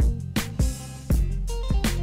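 Background music with a steady drum beat, bass and guitar, in a funk style.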